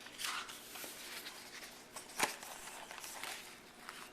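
Rustling and handling of a paper picture book as it is opened and its pages turned, with a sharp tap about two seconds in.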